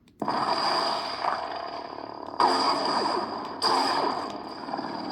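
Lightsaber sound font played through the saber's small 28mm speaker: the blade ignites suddenly and hums steadily with a high whine, and two sudden louder strikes come a little over a second apart.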